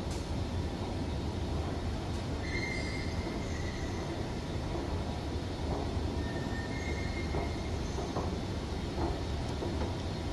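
Hanseon HS200(M) step-type escalator running, a steady loud rumble from the moving steps and drive, with two brief high squeaks about two and a half and seven seconds in. The uploader finds this new unit very noisy and squeaky, which he takes for a slight problem.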